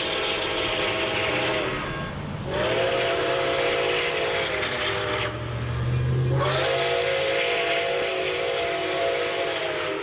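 Steam locomotive chime whistle sounding several notes at once in long blasts. One blast ends about two seconds in, a second runs from about two and a half to five seconds, and a third starts about six and a half seconds in. Each blast slides slightly up in pitch as it opens, over a low rumble and a hiss.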